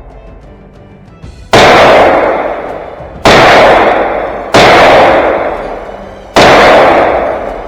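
Four single gunshots from a Ruger 9mm pistol-caliber carbine, fired one at a time at uneven spacing of about one and a half seconds. Each shot rings out with a long echo that fades over more than a second.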